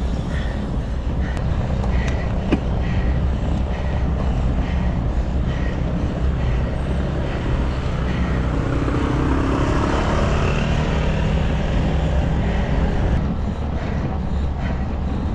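Steady road and wind noise recorded on a bicycle climbing, with a motor vehicle swelling past about nine to eleven seconds in.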